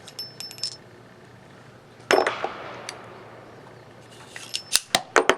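Ruger Vaquero single-action revolver being unloaded through its open loading gate: quick metallic clicks and the ringing clink of spent .45 Colt brass cases coming out of the cylinder, in a short cluster near the start and another near the end. A single duller knock comes about two seconds in.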